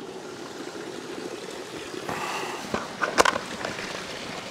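Steady outdoor background noise with footsteps on grass, and a sharp knock a little past three seconds in.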